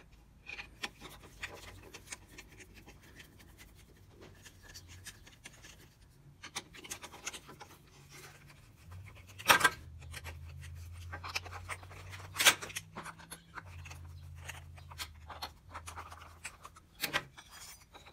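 Hand screwdriver backing wood screws out of an oak jig: scraping and small clicks, with three sharper knocks, the loudest about halfway through. A faint low hum runs underneath.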